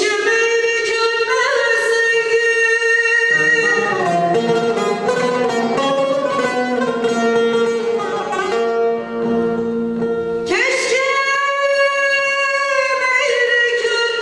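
A woman singing a Turkish folk lament (ağıt) solo, over plucked bağlama accompaniment. The voice is held in two long phrases, the second beginning about ten and a half seconds in.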